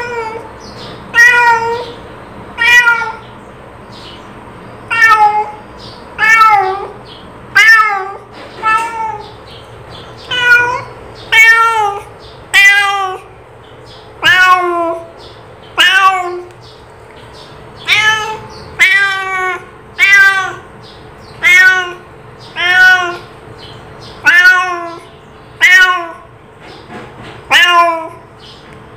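Domestic cat meowing over and over: about twenty short meows, each falling in pitch, one every second or so.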